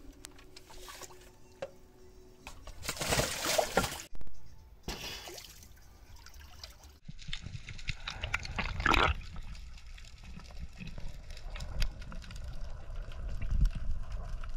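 Seawater splashing and sloshing as a spearfisher goes into the sea, then the muffled low rumble and crackle of water heard from an underwater camera.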